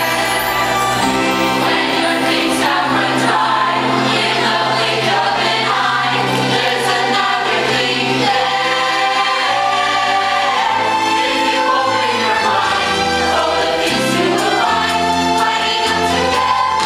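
A stage cast singing together as a choir over instrumental accompaniment in a musical-theatre number, with held notes over a moving bass line.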